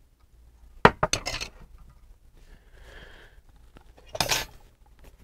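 Stainless steel military canteen cup set down on a tiled tabletop: a sharp clink about a second in, then a few lighter clinks, and a short scrape near the end.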